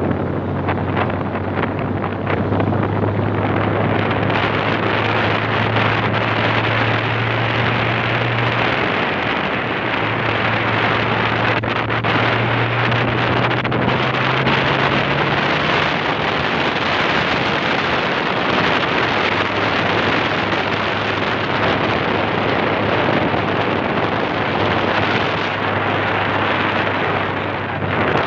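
A pickup truck's engine running steadily under heavy wind noise on the microphone, heard from the open back of the moving truck. The engine hum rises a little in pitch about ten seconds in and drops back a few seconds later.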